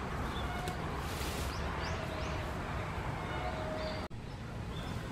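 Outdoor ambience: small birds chirping over a steady low background rumble, with a brief rustle about a second in. The sound drops out for an instant near the end.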